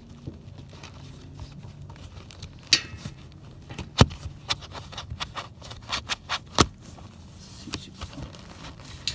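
Hands working on a truck seat's backrest and frame: scattered sharp clicks and knocks with some scraping. The loudest knocks come about 3, 4 and 6.5 seconds in.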